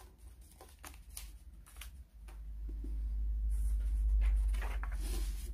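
Hands handling folded paper and brushing the tabletop: scattered light paper rustles and taps. A low rumble comes in about two seconds in and builds to become the loudest sound.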